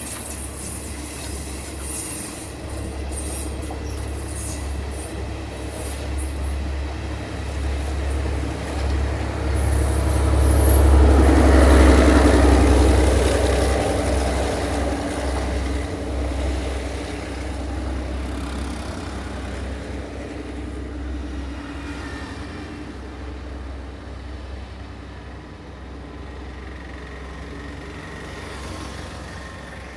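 Sri Lankan diesel train passing by, its engine a steady low drone that swells to its loudest about twelve seconds in, then slowly fades as it moves away.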